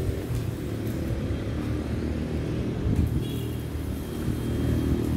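Steady low hum of a motor vehicle engine running, with street noise.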